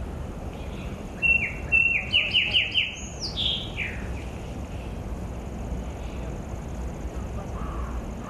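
A bird calling: a quick run of about six short notes, each sliding down in pitch, then two longer downward-slurred notes.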